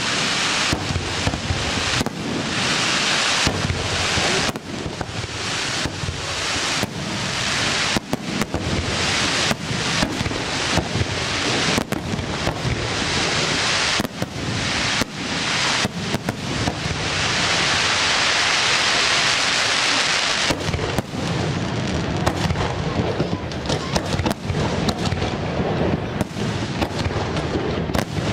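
Fireworks display: shell bursts banging in quick, irregular succession over a steady hiss. Past the middle comes about three seconds of dense unbroken hiss, followed by more bangs over a low rumble.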